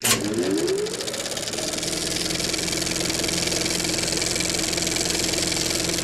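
Trials motorcycle engine cutting in suddenly, its pitch rising over the first second or so, then running steadily.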